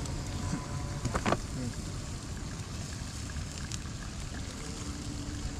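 Steady low outdoor rumble, with one short sharp sound about a second in.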